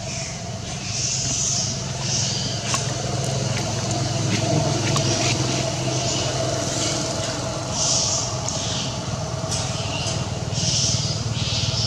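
Steady low engine rumble, like a vehicle running, with short hissing bursts high up about once a second and a few faint clicks.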